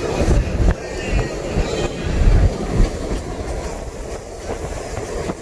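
Car driving: a steady low road rumble with irregular knocks and rattles, the loudest knock a little under 3 seconds in.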